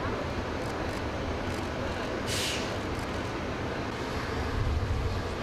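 Jet airliner's engines running on an airport apron, a steady rumbling roar, with one short sharp hiss about two seconds in.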